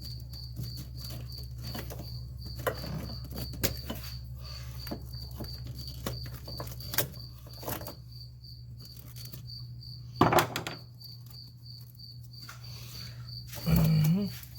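Scattered plastic clicks and knocks from wiring-harness connectors being worked loose under a car's dashboard, with two louder bursts of handling noise about ten seconds in and near the end. A cricket chirps steadily about three times a second, over a steady low hum.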